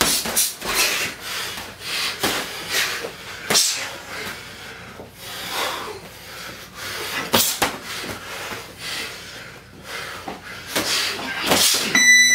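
Boxing gloves landing in an irregular run of slaps and thuds during heavyweight sparring. Near the end, a steady electronic beep of about a second, as from a gym round timer.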